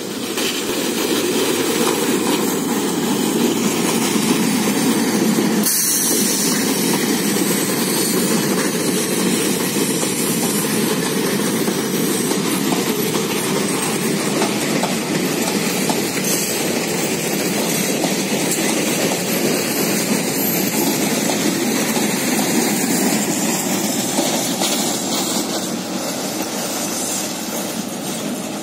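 Diesel-electric multiple unit (DEMU) passenger train rolling past close by, a steady rumble of its wheels on the rails with the clatter of the coaches. It eases off near the end as the train moves away.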